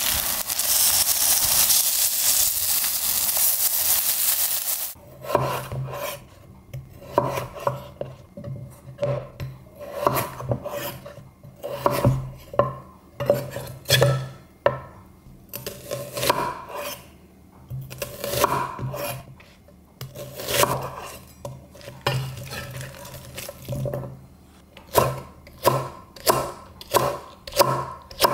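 Potato pancakes sizzling in oil in a frying pan for about five seconds. Then a kitchen knife cuts raw potato on a wooden cutting board in slow, irregular knocks. Near the end come quicker, even chops as green chili peppers are minced.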